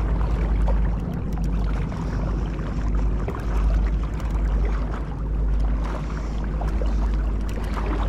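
River current rushing steadily past, with a strong low rumble.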